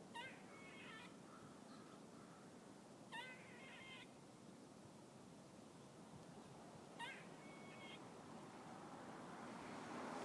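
Squirrel calling three times, each call about a second long and a few seconds apart, faint over a background hiss. A rushing noise swells near the end.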